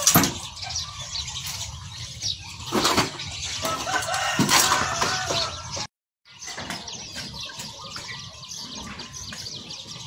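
Wooden boards and storm debris knocking and clattering as they are handled, with a sharp knock right at the start and more knocks about three and four and a half seconds in, over a steady rural background.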